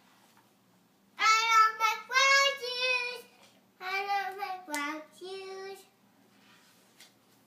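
A young boy singing two short phrases, the first starting about a second in and the second about four seconds in.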